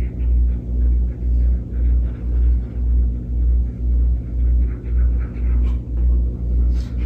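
Background music with a heavy, steady bass beat, about two beats a second, over held low tones.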